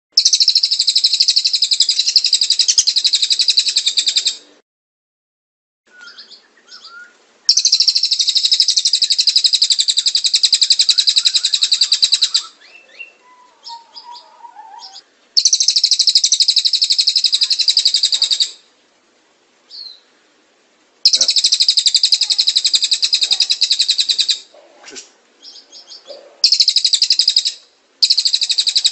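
Cililin and canary song: long, rapid, high trilling phrases of about three to five seconds each, five of them, separated by short gaps with a few soft chirps.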